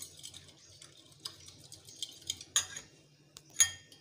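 Metal spoon stirring powdered spices into milk in a small glass bowl, scraping and clinking against the glass, with a few sharp clinks, the loudest near the end.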